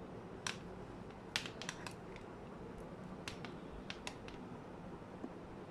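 Scattered light clicks and taps, about eight of them, from handling the hair dryer and its plug, over a faint steady background hiss; the dryer is not running.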